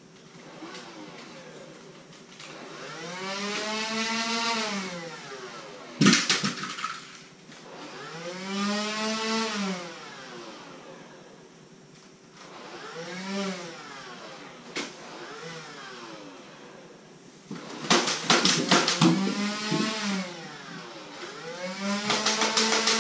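Motorised Nerf flywheel blaster spinning up and winding down about five times, each time a whine that rises and then falls in pitch. Sharp snaps come between the whines, the loudest about six seconds in and a quick run of them a little before the end.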